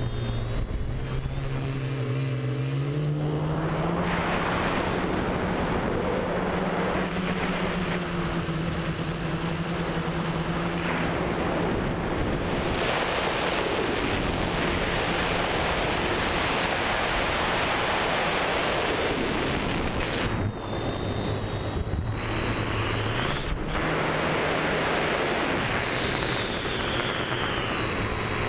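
TBS Discovery Pro quadcopter's motors and propellers, heard from on board. The motor pitch rises as it throttles up and climbs, a rushing noise covers much of the flight, and near the end the motor tone drops and then climbs again.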